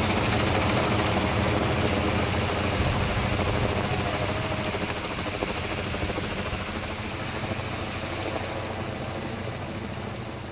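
Helicopter rotor and turbine noise, a steady low thrum, growing fainter through the second half.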